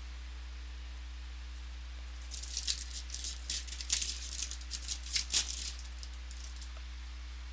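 A trading-card pack wrapper crinkling and tearing as it is opened, in a cluster of sharp crackles over about three and a half seconds, starting about two seconds in.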